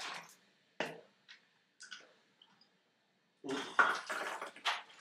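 A person gulping a drink from a plastic bottle: a few separate swallows, then a louder run of gulps near the end.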